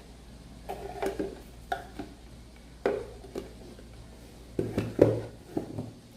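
A wristwatch and its packaging being handled: a series of short clicks, clinks and knocks, the loudest about five seconds in.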